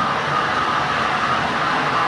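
Electric model trains running on metal track: a steady whir and rattle of motors and wheels.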